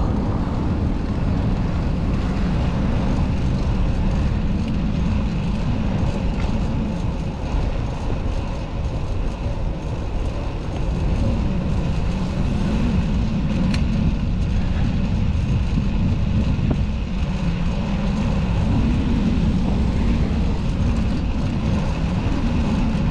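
Wind buffeting the microphone of a moving bicycle's camera, a dense, wavering low rumble, with city traffic noise under it.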